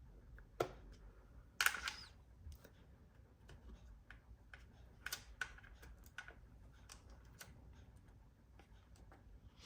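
Irregular light clicks and taps of small hard objects being handled, with a louder clattering cluster about a second and a half in.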